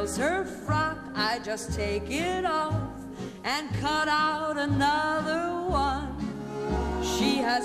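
Music: a song with a high singing voice that wavers with vibrato over instrumental backing and a regular bass line.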